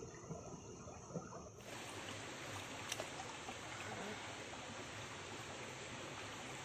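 Shallow freshwater stream running over rocks: a steady rush of water that grows fuller about a second and a half in, with a couple of faint knocks.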